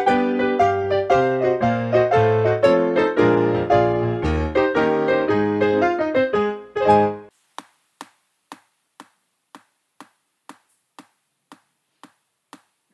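A piano tune plays and ends about seven seconds in; then a steady ticking starts, like a clock, about two ticks a second.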